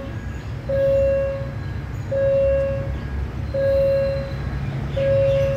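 Railway level-crossing warning alarm sounding evenly spaced beeps, each a bit under a second long and repeating about every one and a half seconds. Underneath is the low, steady rumble of diesel trains at the crossing.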